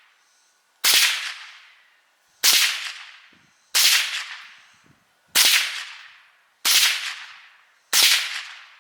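Six shots from a .22 rimfire gun fired at a steady pace, roughly one every second and a half, each crack followed by an echo that fades over about a second.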